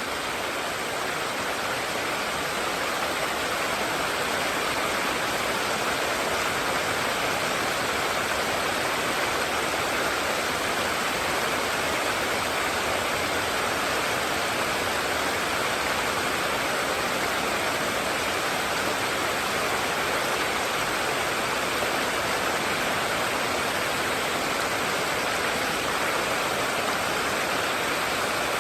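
River water rushing steadily over rocks: the even noise of a fast-flowing mountain stream.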